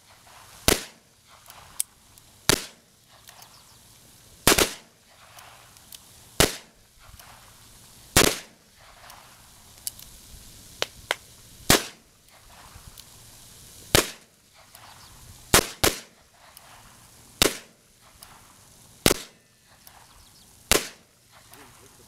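Black-powder cap-and-ball revolvers, an 1851 Colt Navy and an 1858 Remington, firing a string of about twelve single shots, roughly one every two seconds, two of them in quick succession about two-thirds of the way through. A few fainter sharp cracks fall between some of the shots.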